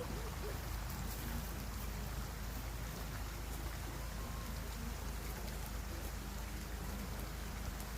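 Steady road and engine noise heard inside a moving car, a low rumble under an even hiss.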